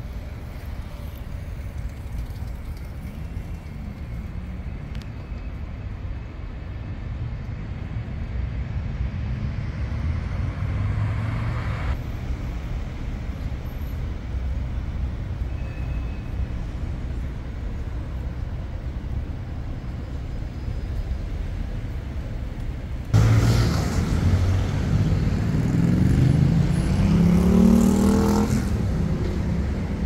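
Steady low rumble of city road traffic. About three-quarters of the way in, a sudden louder rush of noise comes in and a nearby road vehicle accelerates, its engine rising in pitch for a few seconds before fading.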